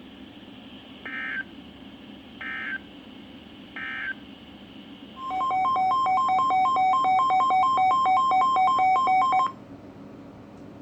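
Three short bursts of Emergency Alert System digital data screech, about a second apart: the end-of-message code that closes the warning. Then about four seconds of loud, rapidly pulsing electronic alert beeps in two pitches.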